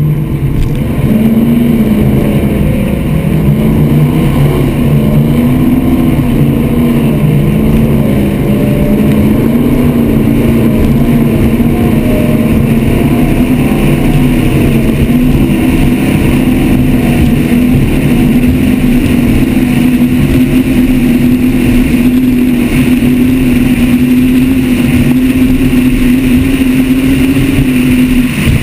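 Mercury-powered offshore racing catamaran's engines running under way, their pitch stepping up about a second in as the boat speeds up, wavering for several seconds, then holding steady and slowly climbing. Wind and hull-on-water noise run under the engine sound.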